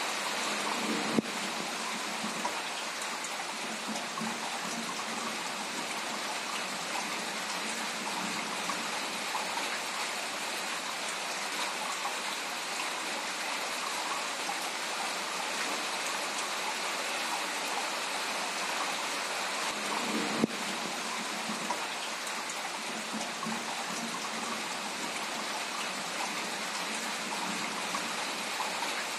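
Steady rain falling on a garden, with two sharp clicks, one about a second in and one about twenty seconds in.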